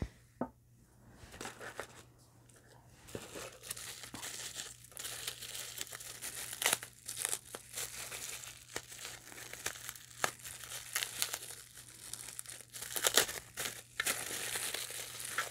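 Plastic bubble-wrap bag crinkling and crackling with many sharp clicks as it is unwrapped by hand. It starts faint and gets louder about three seconds in.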